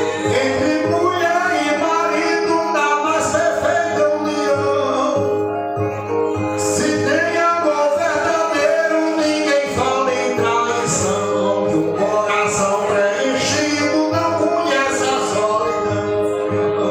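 A man sings an improvised repente verse in a strong, held-note style over two violas with metal resonator plates, strummed and plucked in a steady accompaniment.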